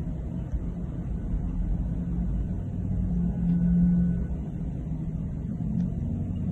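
A running engine: a steady low rumble with a constant hum, swelling a little around the middle.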